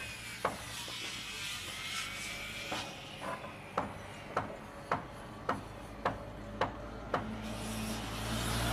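Hand hammer striking, about two blows a second, with a pause of about two seconds early on, part of a construction-site sound effect. A low engine drone rises near the end.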